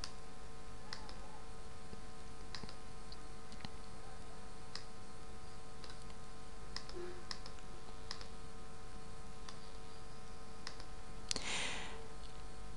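Computer mouse clicking: about a dozen separate, irregularly spaced clicks over a steady background hum, with a short hiss near the end.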